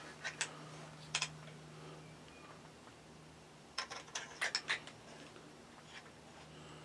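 Faint handling clicks and taps from an AR-style .223 rifle being turned in the hands: a few near the start and a quick cluster about four seconds in, over a low steady hum.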